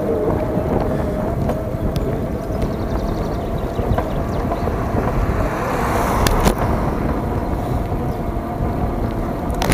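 Wind rumbling on the microphone and tyre noise from an e-bike riding steadily along a smooth, newly built cycle path, with a faint steady whine throughout and a couple of clicks about six seconds in.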